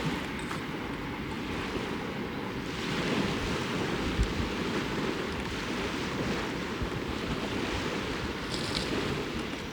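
Small waves washing onto a lakeshore, a steady rushing wash that swells a little about three seconds in, with wind buffeting the microphone.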